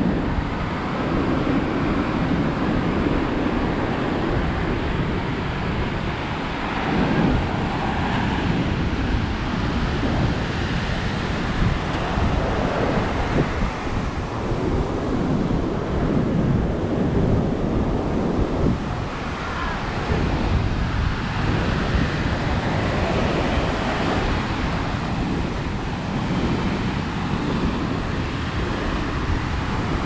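Wind buffeting the microphone over the steady wash of surf breaking on the shore.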